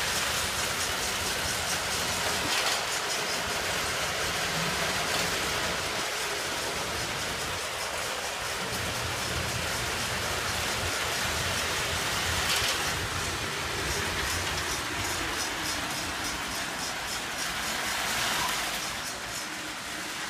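Lionel toy trains running on three-rail track: a steady rumble and hiss of wheels and motors, with faint rhythmic clicking.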